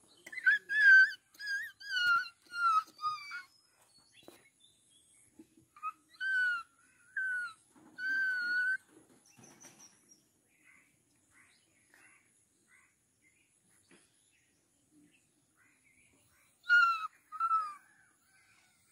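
A series of short, high, whining animal calls: about six in quick succession at the start, several of them falling slightly in pitch, four more around the middle, and two near the end.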